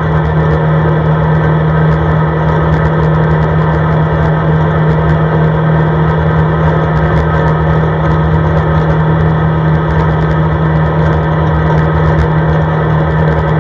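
CFMoto ATV engine running at a steady cruising speed as the machine drives along a snowy road, a strong steady low hum under constant running noise with no change in engine speed.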